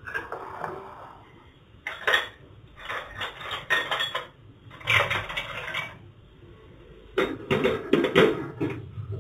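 A spoon scraping and clinking against a non-stick kadai as a lump of ghee is pushed around in it, in several short bursts. Near the end the pan itself is shifted and knocks on the stove.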